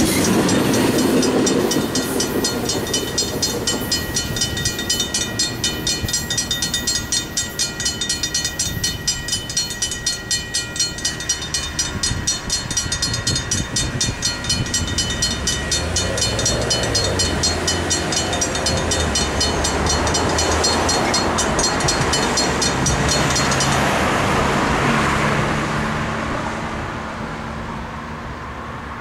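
Railroad crossing bells, among them a RACO mechanical bell, ringing in fast, even strokes while the crossing gates rise after the train has cleared. The bells stop about 24 seconds in, once the gates are up. Rail noise from the end of a stack train fades at the start, and road traffic follows the bells.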